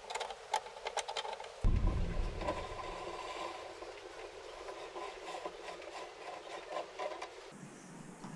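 Light clinks, knocks and scraping of steel parts being handled and worked on a wooden workbench, a quick run of small metallic clicks. The sound changes abruptly about a second and a half in, as the work switches.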